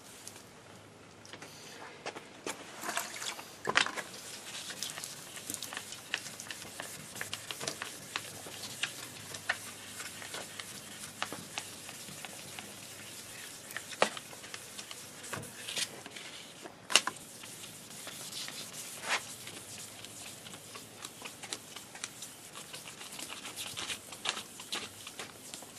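Hand wet-sanding of a plastic headlight lens with fine-grit wet/dry sandpaper: a steady rubbing scrape with many irregular small clicks and taps.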